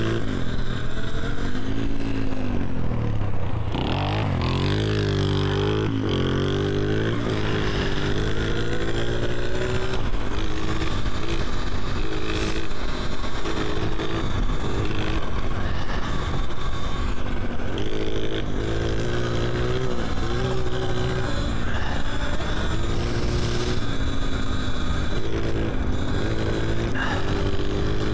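Electric dirt bike motor whining, its pitch rising and falling with the throttle as the bike is ridden hard. A steady rush of noise runs under it.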